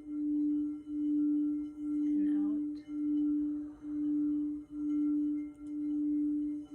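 Singing bowl sounding one steady low tone with a few faint higher overtones, its loudness swelling and dipping in a regular pulse a little more than once a second.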